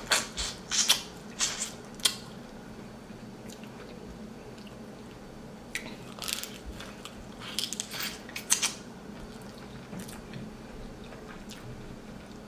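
Close-up wet eating sounds of king crab in seafood-boil sauce: smacking, biting and chewing in short clicky bursts, busiest in the first two seconds and again around the middle, with quieter chewing between.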